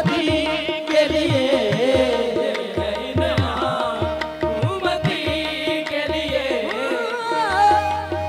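Qawwali music: a wavering sung melody over regular tabla beats and a steady held note.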